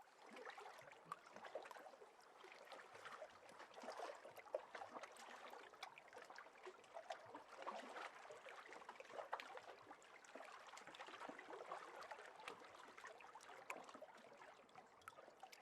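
Faint water lapping and trickling, with many small splashes in a steady wash.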